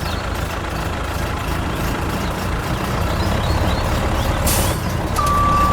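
Heavy vehicle engine running steadily with a low rumble. A single high reversing beep starts near the end.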